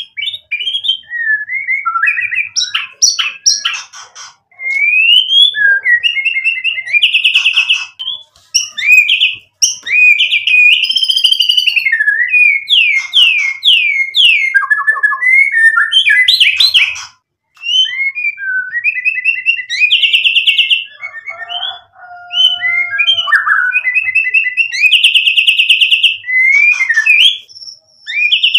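White-rumped shama (murai batu) singing a long, varied song: whistled phrases that slide up and down in pitch, fast rattling trills and chattering notes, broken by short pauses. It is running through its full repertoire of learned phrases (isian).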